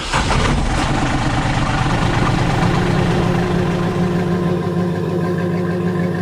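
An engine idling, a steady hum with a low drone.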